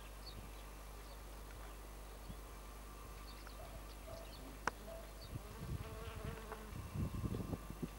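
Honeybees buzzing while foraging on blossom, a faint hum, with scattered short high chirps. A sharp click comes about halfway through, and a cluster of low thumps follows in the second half.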